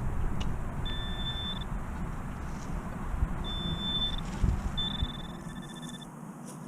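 Metal detecting gear beeping on a buried target: three steady high electronic tones, the last one the longest, over low outdoor rumble.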